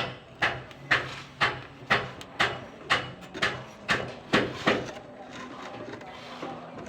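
Repeated hammer blows, about two a second, roughly ten strikes that stop about five seconds in.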